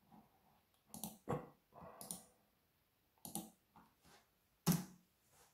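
Scattered clicks of a computer mouse and keyboard while a command is copied and pasted into a terminal: about eight short clicks at uneven intervals, the loudest near the end.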